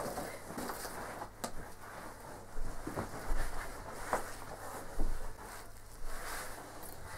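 Quiet rustling with a few light knocks and taps, spaced a second or so apart, from a person moving about and handling things.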